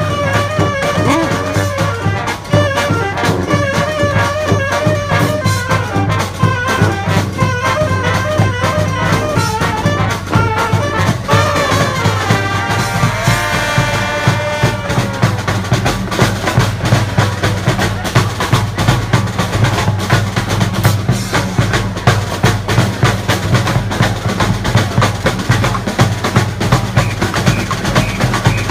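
Street brass band playing: horns carry a melody over a drum beat, and about halfway through the melody gives way to mostly drums over a low held note.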